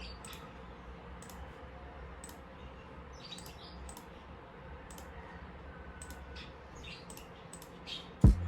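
Quiet room tone with a low hum and scattered faint, light clicks or taps, a few short high chirps among them. A loud sudden sound comes just before the end.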